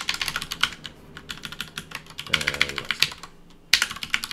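Typing on a computer keyboard: a rapid run of keystrokes with a denser flurry near the end.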